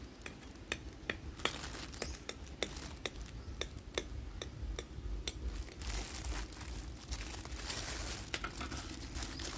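Knife cutting through a sponge cake on a ceramic plate, with a run of small sharp clicks as the blade knocks against the plate. From about six seconds in, a thin plastic food glove crinkles as the slice is gripped.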